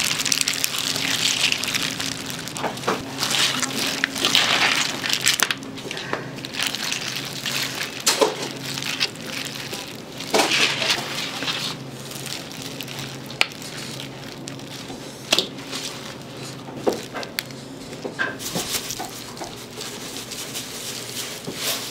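Kitchen food-preparation noise: irregular bursts of scraping and rustling, then scattered sharp knocks in the second half, over a steady low hum.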